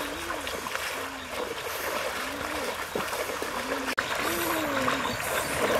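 River water trickling and splashing around wading legs, with a low call that rises and falls repeated about once a second.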